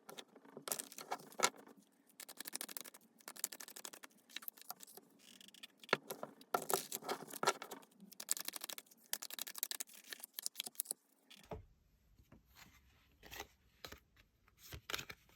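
Tarot cards being shuffled and handled on a table, a dense run of irregular riffling clicks and scrapes. About eleven seconds in it gives way to sparser card taps and slides.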